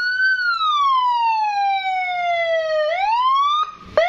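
Electronic police-escort siren module through a 15-watt horn speaker, sounding a long wail in its held long-tone mode. The pitch peaks, falls slowly for about three seconds, climbs again and cuts off, and a quick rising yelp comes right at the end.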